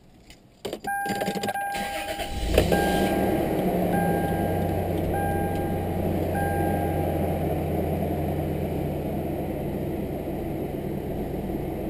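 Clicks of the key turning in the ignition and a warning chime beeping, then about two and a half seconds in the Toyota 4Runner's 3.4L V6 cranks briefly, starts and settles into a steady idle. The chime keeps beeping roughly once a second until about halfway through.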